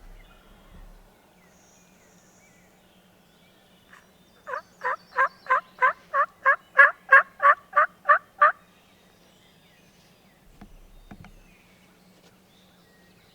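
A run of about thirteen wild turkey yelps, about three a second, growing louder over the first few notes and then holding steady.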